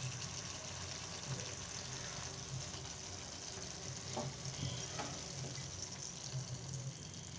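Bitter gourd and tomato curry sizzling in a pan as a spatula stirs through it, with a couple of short clicks of the spatula against the pan about four and five seconds in.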